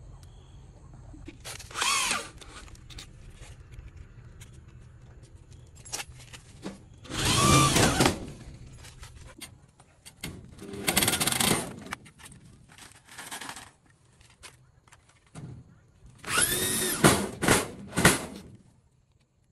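Corded electric hand drill running in about five short bursts, drilling screw holes at a door hinge. Its whine rises as it spins up and falls as it stops each time, with the longest burst, about two seconds, near the end.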